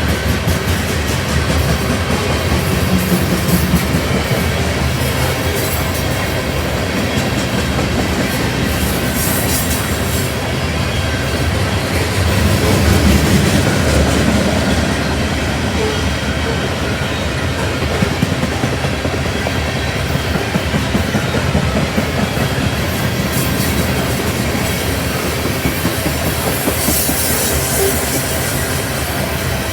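Freight train cars rolling past, wheels clacking over rail joints over a steady low rumble.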